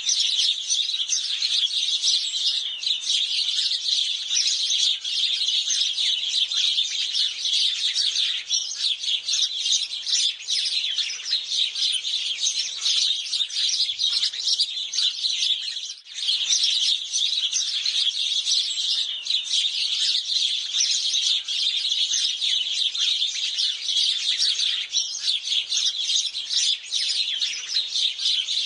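A flock of house sparrows chirping in a dense, unbroken chorus of many overlapping short chirps, with a brief lull about halfway through.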